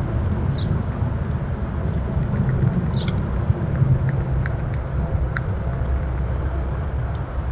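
Outdoor ambience: a steady low rumble with faint, short, high chirps now and then, the clearest about three seconds in.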